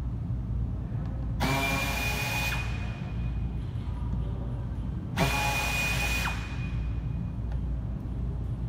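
Cordless power driver with a T20 Torx bit running twice, about a second each time, with a steady whine: backing out the Torx screws that hold the under tray and fender liner.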